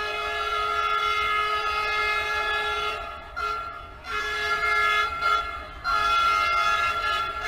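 Train horn sounding in long blasts, broken by short gaps about three, four and six seconds in.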